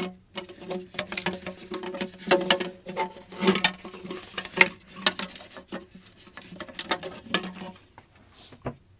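Irregular clicking, scraping and knocking of hands and a tool working a rusted, brittle crankcase breather hose fitting loose on a diesel engine, over a steady low hum that stops near the end.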